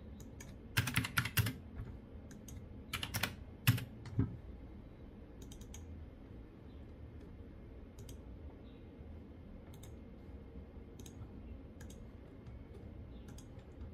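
Computer keyboard typing: two short bursts of quick keystrokes in the first few seconds and a sharper single click just after, then scattered faint clicks.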